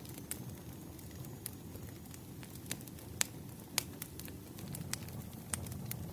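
Wood fire burning with a low, steady rumble and irregular sharp crackles and pops, about a dozen over a few seconds, two of them louder near the middle.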